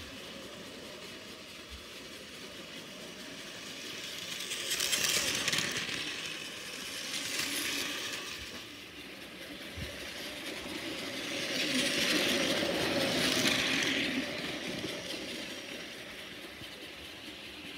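Battery-powered toy Shinkansen trains running on plastic track: a small electric motor whirring and plastic wheels rattling over the rails. The sound swells and fades as trains pass close by, about five seconds in and again, loudest, around twelve to fourteen seconds in.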